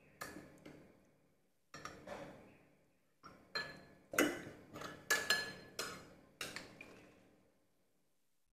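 A large aluminium ladle clinking and knocking against ceramic bowls while pig's blood is stirred and ladled: about a dozen separate light clinks, busiest between four and seven seconds in.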